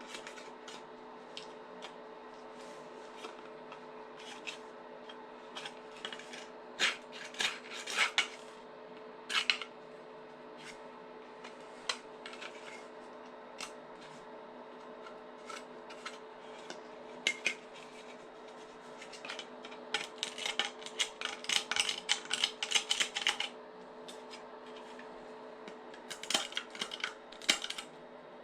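A sharp knife carving and scraping excess plastic off a 3D-printed airsoft lower receiver: scattered sharp clicks and scrapes, with a dense run of quick strokes about twenty seconds in and another near the end, over a steady low hum.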